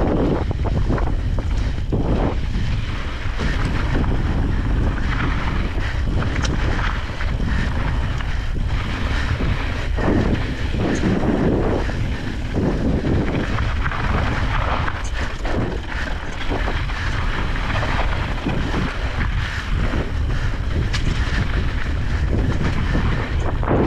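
Wind buffeting the microphone of a camera riding on a moving e-bike, a heavy low rumble that swells and eases in gusts, with scattered short clicks and rattles.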